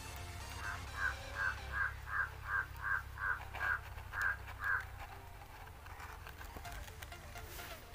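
A bird calling in a quick run of about ten short, evenly spaced calls, over a low steady hum that fades out about halfway through.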